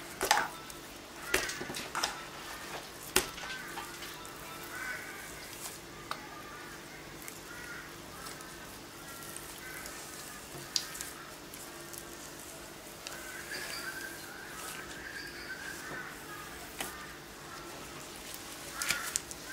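White slime squeezed and kneaded by hand, giving sticky pops and clicks, strongest and most frequent in the first few seconds. Faint chirping calls run underneath.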